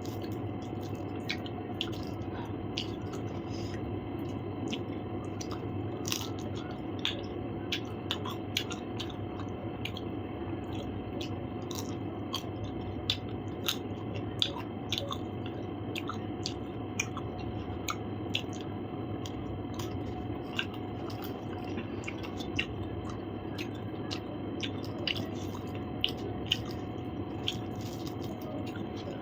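Close-up chewing and wet mouth sounds of a person eating, with many small scattered clicks, over a steady background hum.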